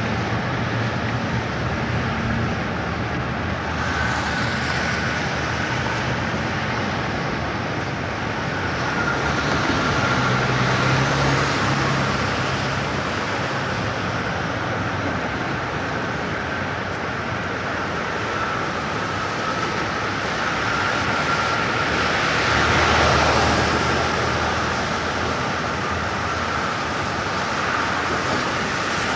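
1960s city street traffic: a steady wash of passing vehicles, with louder passes about ten seconds in and again near twenty-three seconds.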